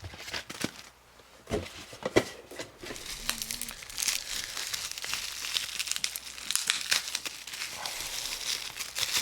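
Plastic miniature packaging crinkling and crackling as it is handled and pulled open, with a few sharp clicks in the first couple of seconds and denser crinkling from about four seconds in.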